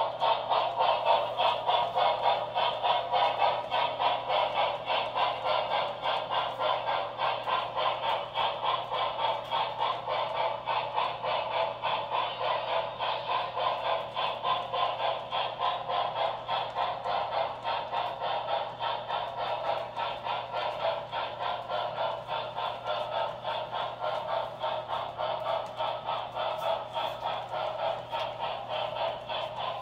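HO scale model train running on its track: a steady mechanical clatter of wheels and motor, pulsing in a fast, even rhythm over a low steady hum.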